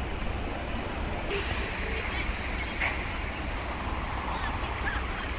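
Steady outdoor street noise of road traffic, with wind rumbling on the microphone.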